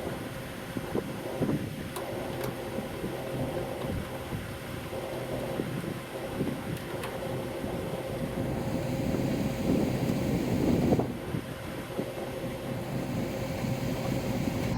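A steady mechanical hum with a constant tone, under rough wind-like noise, with a couple of sharp clicks about two seconds in.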